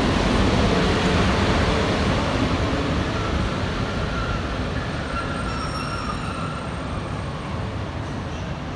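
PKP Intercity EP09 electric locomotive passing close and drawing away, its running noise and rumble on the rails fading steadily as it recedes. A faint high tone comes and goes in the middle.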